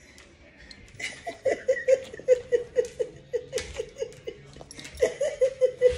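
A woman laughing in a rapid run of short ha-ha pulses, about four a second, starting about a second in, breaking off near four seconds and starting again near five seconds.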